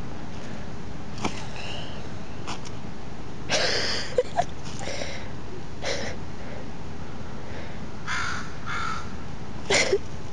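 Several short, harsh animal calls, spaced a second or two apart, over steady background noise.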